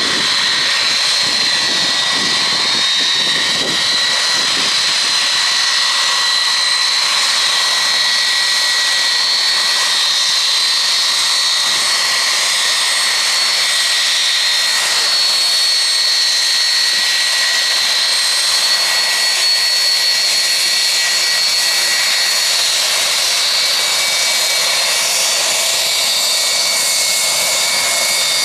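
Boeing 757's twin jet engines running at low power as it taxis along the runway: a steady, high-pitched whine over a rushing hiss.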